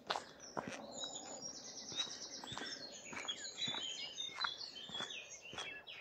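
A small songbird singing one long, fast phrase with a rapid trill near the start, over steady footsteps on a path, about two a second.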